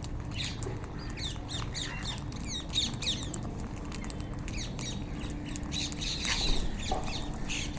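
A flock of wild rose-ringed parakeets (Indian ringnecks) squawking and chattering while they feed, with many short, high calls falling in pitch and overlapping one another.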